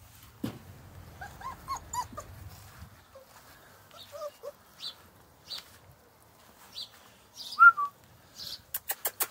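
Bernese Mountain Dog puppies whimpering in short, high cries, the loudest one a little over three-quarters of the way through. A quick run of sharp clicks comes near the end.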